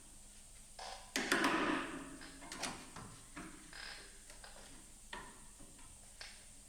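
Scattered metal knocks and clanks from sheet-metal body work, the loudest a short clatter about a second in, followed by a few lighter knocks.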